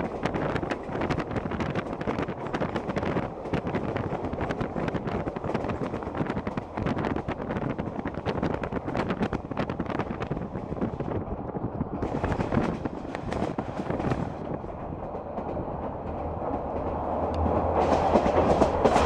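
Train running on the rails, wheels clattering rapidly over the track, getting louder near the end.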